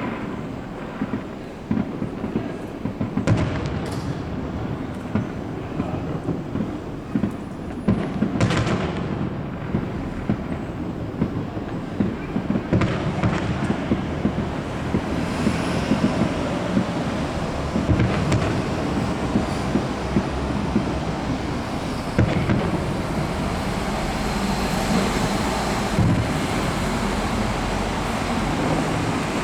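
Aerial fireworks display: a dense, unbroken run of bangs and crackling over a low rumble of booms, growing slightly busier in the second half.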